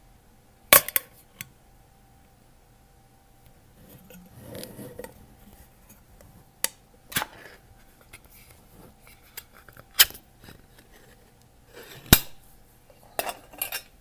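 Cans being opened: a series of sharp metallic clicks and snaps spread out with pauses between them, with a short rustling noise about four to five seconds in.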